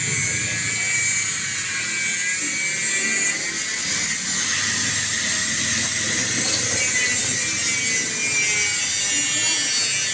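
A handheld power tool running steadily on metal, with a continuous high-pitched whine.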